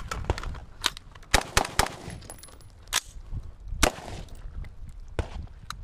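Rifle shots at irregular intervals, about eight of them, some louder than others.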